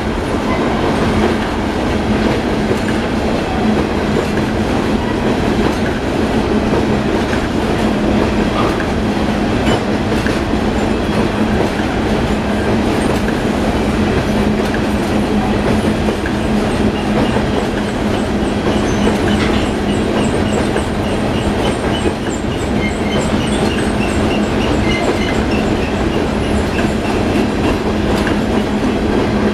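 Union Pacific freight train's covered hopper cars rolling across a steel truss bridge: a steady rumble with the clickety-clack of the wheels, and faint short high-pitched squeaks in the second half.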